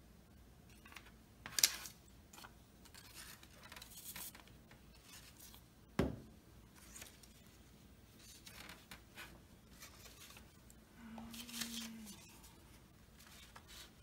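Paper model pieces being handled at a table: scattered short rustles and scrapes of card stock, a sharper scrape about a second and a half in, and a single knock on the tabletop about six seconds in.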